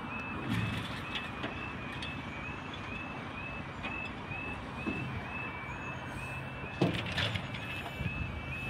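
Level crossing warning alarm sounding a repeating high warble, steady and unchanged while the barrier arm rises. From about halfway, the low hum of a waiting vehicle's engine comes in, with a few short knocks near the end.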